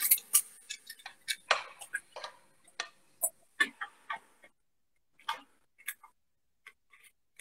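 Metal fork clicking and scraping against a glazed clay bowl while flaking cooked salt cod: quick, irregular taps that thin out to a few scattered clicks about halfway through.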